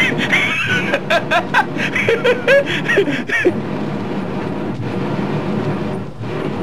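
A man laughing in a run of short repeated bursts, which stops about three and a half seconds in, leaving a steady background hiss.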